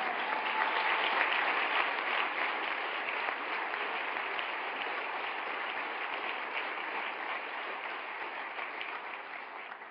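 Large audience applauding, loudest at the start and slowly dying away near the end.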